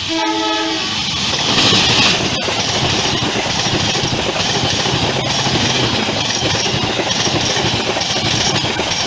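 Matarmaja passenger train, hauled by a CC 201 diesel-electric locomotive, passing close at speed. A short horn blast sounds in the first second. The locomotive goes by loudest about two seconds in, then the carriages run past with wheels clattering over the rail joints.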